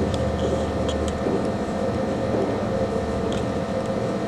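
Steady mechanical hum, like a room fan or air conditioner, with a deeper drone underneath that drops away about a second in. A few faint short squeaks of a marker writing on a whiteboard.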